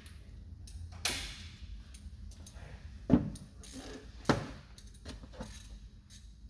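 Light clicks and knocks of hand-handling on a workbench: a short rustle about a second in, then two sharper knocks about three seconds and just over four seconds in, with a few fainter clicks between.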